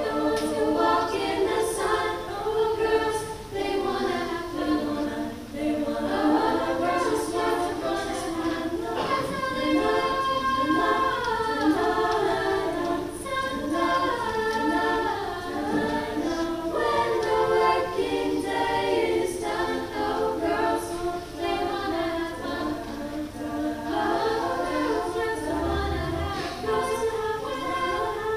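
High school choir singing a cappella, several voices in harmony holding long notes and moving between chords.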